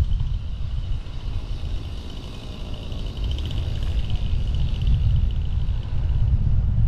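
Wind and road rumble on a hood-mounted microphone of a moving car, easing off about two seconds in and building again as the car picks up speed. A faint high buzz rises and fades in the middle.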